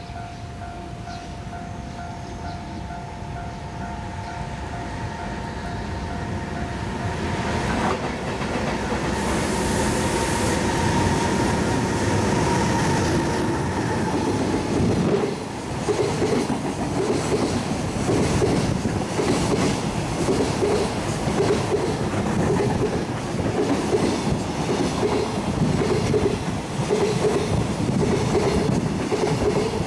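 A chime rings steadily for the first several seconds and then stops. A freight train hauled by an EH800 electric locomotive grows louder as it approaches, then runs past with a steady rumble and a regular clickety-clack of container wagons' wheels over the rail joints.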